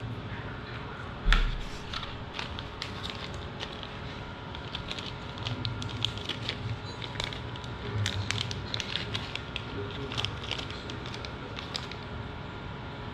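Small clear plastic parts bag crinkling and crackling in the hands as it is handled and opened, in many quick irregular crackles, with one dull thump about a second in.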